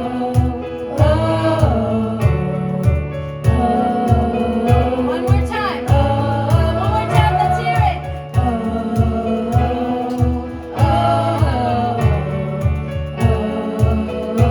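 Worship band playing a song, with voices singing a melody over held chords and a steady drum and bass beat.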